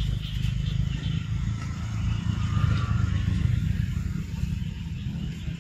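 Low, steady engine rumble of a motor vehicle running nearby, easing off slightly near the end.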